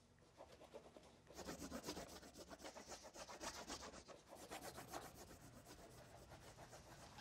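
Faint, rapid back-and-forth scratching of colouring on paper, starting about a second in.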